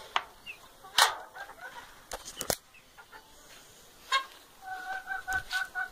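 Domestic fowl calling: a quick run of short, evenly spaced calls starting near the end. Before it, a few sharp knocks and bumps.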